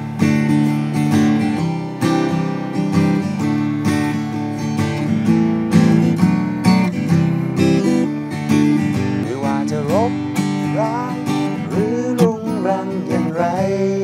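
Acoustic guitar strummed in a steady chord pattern, the opening of a song; about ten seconds in a voice starts singing a melody over it.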